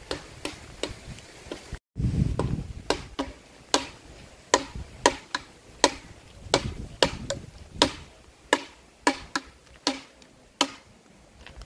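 Footsteps on a dirt path, sharp steps at a walking pace of about two a second.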